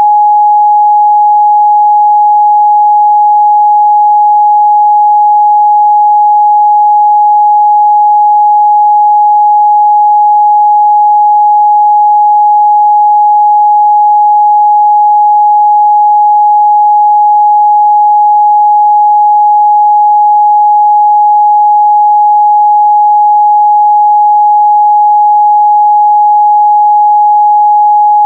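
A steady, loud 836 Hz sine-wave test tone, a single pure pitch held without change, used to check the midrange response of speakers and headphones.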